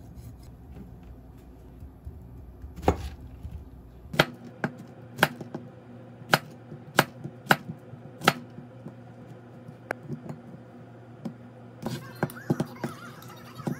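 A kitchen knife chopping on a cutting board: single sharp cuts about once a second, then a few scattered cuts and a quick cluster near the end.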